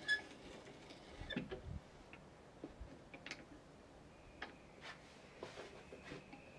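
Faint, scattered taps and clicks of hand-tool woodworking, with a short ringing clink right at the start and a few louder knocks in the first two seconds.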